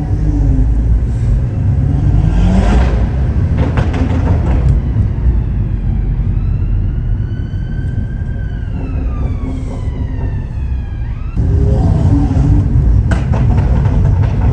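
Stage 2 BMW M140i's B58 3.0-litre turbocharged straight-six with a custom exhaust, running under load with a heavy low rumble, a rev rise a couple of seconds in and a short run of sharp exhaust cracks about four seconds in. Midway a siren wails up and back down over about five seconds and cuts off, and the engine comes back louder.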